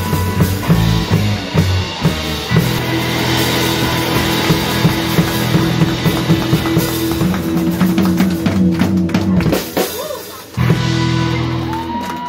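Live rock band playing electric guitars, bass guitar and drum kit, with a driving beat and sustained bass notes. The music drops out briefly about ten seconds in, then comes back in.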